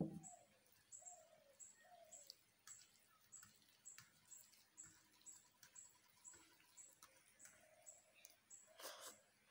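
Near silence, with faint bird chirps in the background: a thin high chirp repeats a little under twice a second, with a few short lower calls early on. A brief louder noise sounds near the end.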